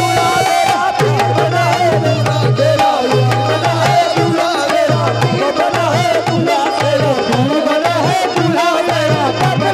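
Live qawwali music through a PA: harmoniums play with a dholak beating a steady rhythm, and voices sing into microphones.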